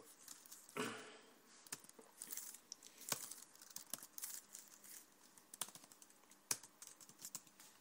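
Typing on a computer keyboard: irregular, quick keystroke clicks as a username and password are entered. A brief voice-like sound comes about a second in.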